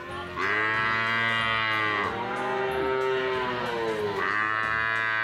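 Cattle mooing: three long moos in a row, starting about half a second in.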